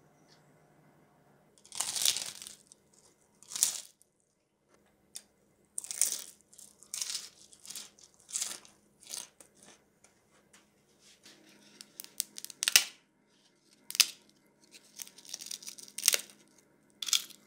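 Puffed, deep-fried pork rind (chicharrón) crackling and crunching as it is snapped apart by hand: a run of sharp, irregular crunches starting about two seconds in.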